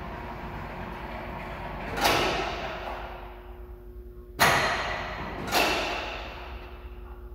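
Overhead crane hoist trolley and drive running on the bridge girder with a steady low rumble and hum, broken by three loud clunks that each ring out for about a second.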